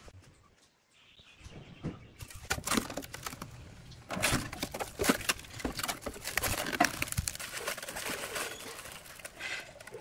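Protective plastic film being peeled off a stainless steel sink, crackling and rustling with many small sharp crackles. It starts about two seconds in, after a near-quiet moment, and grows denser from about four seconds in.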